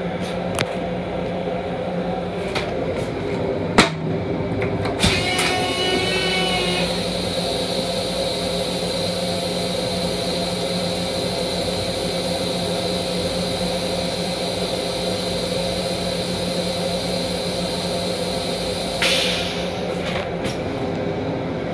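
Long Island Rail Road M7 railcar toilet flushing: a sharp click about four seconds in, then the flush starts with a brief whine and runs as a steady rush of water for about fourteen seconds, changing and dying away near the end. The train's steady hum runs underneath.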